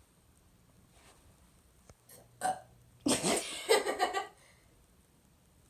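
A person burping: a brief sound about two and a half seconds in, then a long, loud burp starting a little after three seconds and lasting just over a second.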